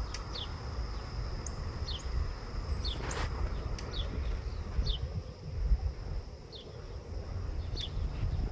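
A steady high-pitched insect trill, with short downward-sliding chirps about once a second and a low rumble underneath. There is a brief whoosh about three seconds in.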